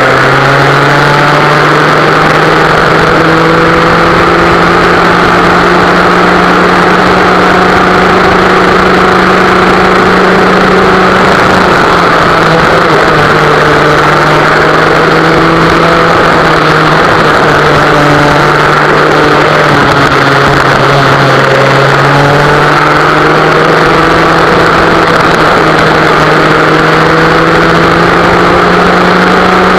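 Vintage West Bend two-stroke kart engine running at racing speed, its pitch climbing under acceleration and dropping off when the kart slows, several times over.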